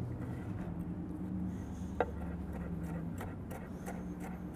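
Chef's knife chopping crisp, charred grilled beef short ribs on a wooden cutting board: a run of crunchy knife strikes, the sharpest about two seconds in, over a low steady hum.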